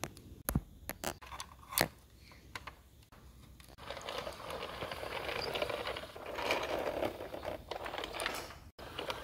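Sharp clicks and taps of plastic toys being handled, then a few seconds of rough scraping, rolling noise as a plastic toy truck is pushed along the floor.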